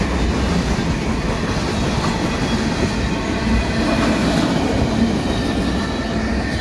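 Freight train cars, open hoppers then tank cars, rolling past close by: a steady rumble and rattle of steel wheels on the rails.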